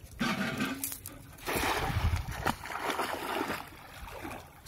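Cast net thrown over shallow flooded water. A short burst sounds at the throw, then the net and its weighted rim hit the water with a loud splash, and splashing and sloshing follow as the fisherman wades in after it.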